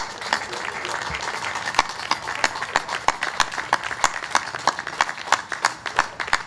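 Crowd applauding, with one person's loud hand claps close by, about three a second.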